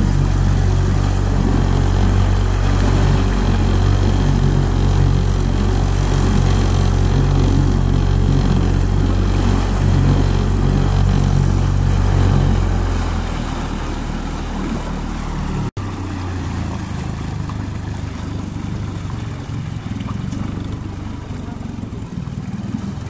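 Outboard motor of a small inflatable boat running under way with the rush of water from the wake; a little over halfway through it throttles back and runs quieter, with a momentary break in the sound shortly after.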